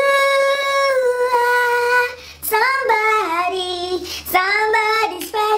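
A man singing solo in a high voice into a handheld microphone. He holds one long note for about two seconds, then slides up and down through wavering runs.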